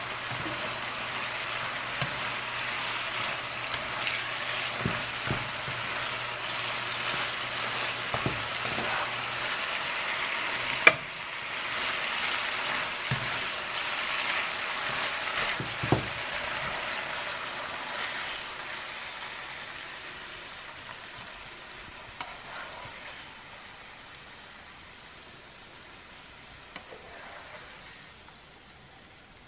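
Pork intestines and celtuce sizzling in sauce in a frying pan, stirred with a spatula that knocks and scrapes against the pan, with one sharp click about eleven seconds in as the loudest sound. A low hum stops about nine seconds in, and the sizzling fades toward the end.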